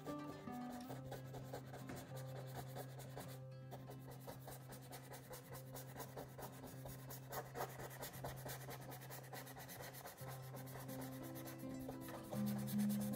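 Fine paintbrush rubbing and scratching in short strokes on canvas as acrylic paint is worked on, over soft background music with held low notes.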